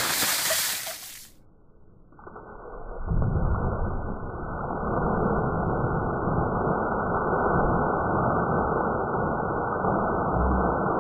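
Ice water splashing down from a dumped bucket, cut off abruptly about a second in. Then a dull, muffled rushing rumble with all the treble gone, swelling about three seconds in and holding steady: the dousing played back in slow motion.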